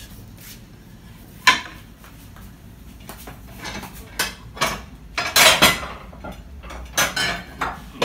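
Kitchen clatter: crockery and utensils knocking and clinking against each other and the worktop. A single sharp knock comes about a second and a half in, then a busier run of clinks and knocks in the middle, the loudest part, and a few more near the end.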